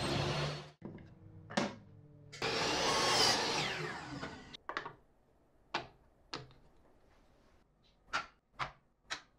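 A power saw runs and cuts off abruptly about half a second in. A miter saw then runs for about a second and a half and spins down with falling pitch, followed by six short, sharp knocks of wood pieces on a workbench.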